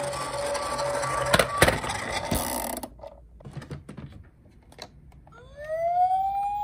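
Plastic toy police car rolling on a wooden slope with a steady rushing noise and two sharp knocks about a second and a half in, stopping abruptly. Then come light clicks of plastic toy cars being handled. Near the end a toy police car's electronic siren starts, its wail gliding upward in pitch and then holding.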